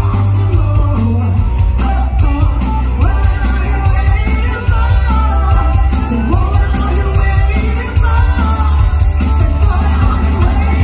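Live rock band playing loud, a woman singing lead over a drum kit, with a heavy low end.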